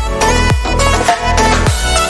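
Background music with a steady beat, about two thumping beats a second under a melody.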